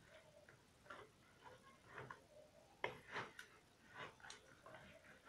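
Faint, irregular squelches and taps as hands knead and squeeze soft yeast dough in a plastic bucket, about one or two a second.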